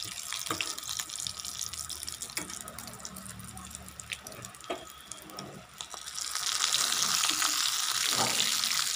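Mustard oil sizzling and crackling as stuffed bitter gourd chops shallow-fry in a pan on a low flame. The sizzle grows louder and denser about two-thirds of the way in.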